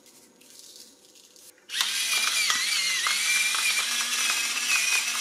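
A few soft shakes of a salt shaker, then about a second and a half in a battery-powered electric pepper mill starts grinding. It gives a steady motor whine with a wavering high tone, running on batteries that are overdue for changing.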